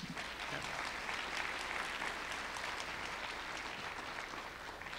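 Audience applauding, a dense patter of many hands clapping that starts suddenly and dies away near the end.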